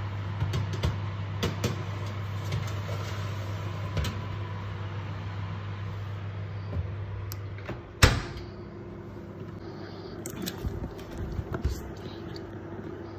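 Electrolux oven door swung shut, closing with a single loud thump about eight seconds in, after a few light clicks of the tray and foil loaf tin being handled. A steady low hum cuts out just as the door shuts.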